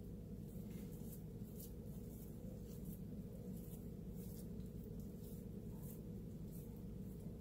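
Faint soft rustles and light taps of hands pressing and folding sticky sourdough into a ball, repeating every half second or so, over a steady low hum.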